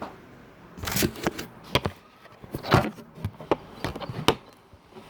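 An irregular series of about seven sharp knocks and clicks, the loudest a little before the middle and near the end.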